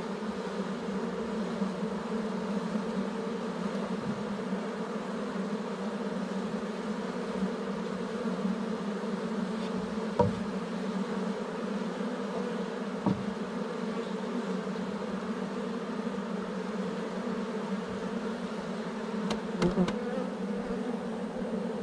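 Honeybee swarm buzzing steadily in a dense hum around the hive as the bees move in and fan, which the beekeeper takes as a sign the queen is inside. A few light knocks sound about ten and thirteen seconds in, and a couple more near the end.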